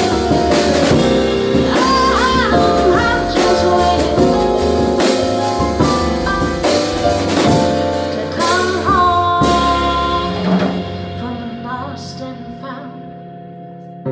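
A singer with a live jazz trio, the drum kit keeping time. About ten seconds in, the drums stop and the music thins and softens to a held chord.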